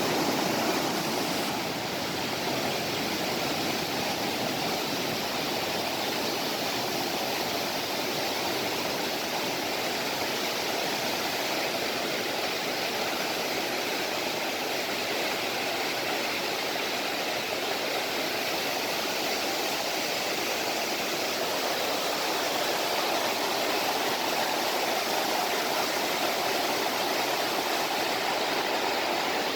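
Mountain valley stream, water rushing in a steady, unbroken flow.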